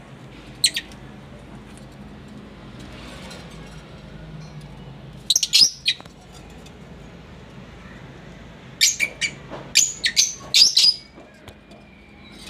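Lovebirds chirping in short, sharp, high calls: one about half a second in, a quick cluster around five and a half seconds, and a run of about half a dozen between nine and eleven seconds.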